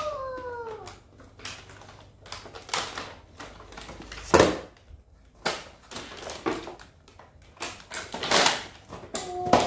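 Cardboard toy boxes and plastic packaging being handled and opened: rustling with scattered clicks and knocks, the loudest a sharp knock about four and a half seconds in.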